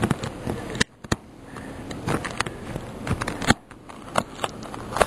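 A knife cutting and working at flat-roof covering: a run of irregular sharp clicks and scrapes, with short pauses about a second in and again past three seconds.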